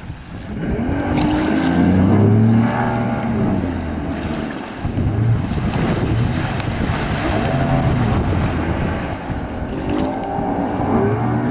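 Outboard motor of a small speedboat running hard, its pitch swinging up and down as the boat turns and passes, over the rush of water and spray.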